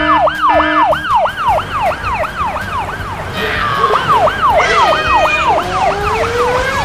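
Police car siren wailing in a fast up-and-down yelp, its pitch cycling about three times a second. A second siren joins in about three seconds in, so the two overlap.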